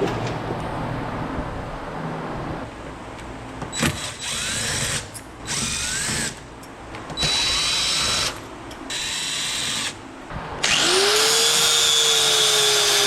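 Power drill running in short bursts: four runs of about a second each, then a longer run of nearly three seconds near the end whose motor pitch rises as it spins up and then holds steady.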